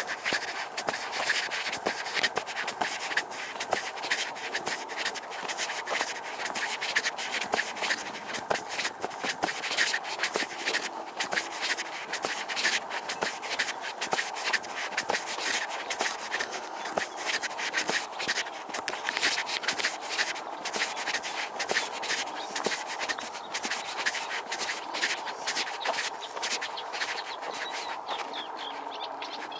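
Footsteps on a dry sandy-gravel path, a steady scuffing and crunching at walking pace close to the microphone, thinning out near the end.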